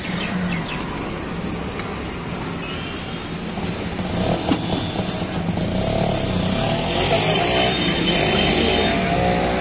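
Street traffic noise led by a motorcycle engine running close by, louder in the second half, with a sharp click about four and a half seconds in.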